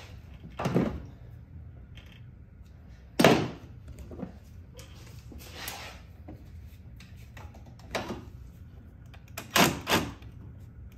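Hand tools knocking and clanking against metal as a bolt in a car's engine bay is worked off: a string of separate sharp knocks, the loudest about three seconds in and two in quick succession near the end.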